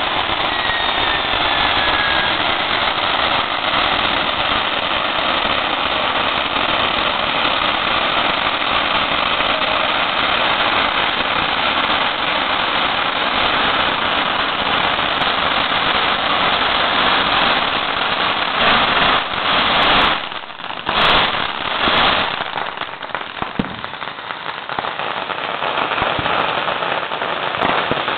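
Fireworks and firecrackers going off together in a dense, continuous crackle. About twenty seconds in it briefly drops off, broken by a few sharp bangs, then builds back up.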